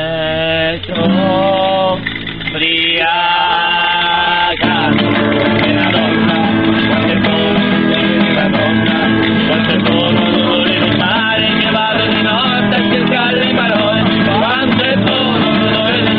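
A song with guitar accompaniment. A voice holds long, wavering notes at first, then the fuller accompaniment comes in about four and a half seconds in and the music gets louder and denser.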